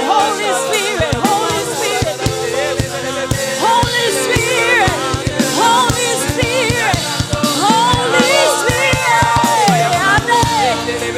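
Gospel worship band playing, with a drum kit keeping a steady beat under voices singing melodic runs without clear words.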